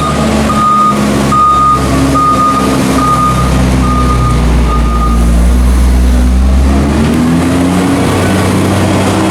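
Tractor diesel engine running under load while rolling a maize silage clamp, with a reversing alarm beeping about once every 0.8 s. The beeping stops about five seconds in. Near the end the engine note rises.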